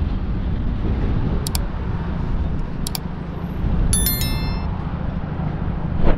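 City street ambience: a steady low traffic rumble, with two sharp metallic clinks and a short ringing metallic ding about four seconds in.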